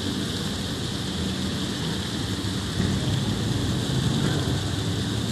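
Water churning and boiling up in a canal lock chamber as it fills, a steady rushing noise with a low hum underneath.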